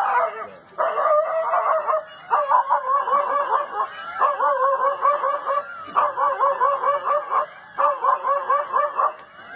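A dog barking at a leopard in quick, high-pitched yelping barks, several a second, in bouts of one to two seconds with short breaks between them.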